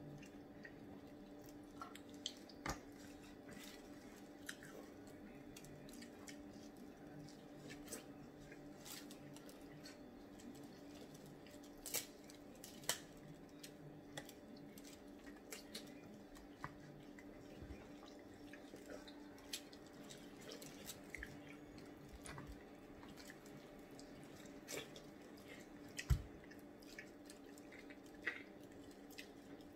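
Quiet close-up eating sounds: wet chewing and smacking, with scattered small clicks and cracks as crab-leg shells are picked apart, over a low steady hum. One louder knock comes near the end.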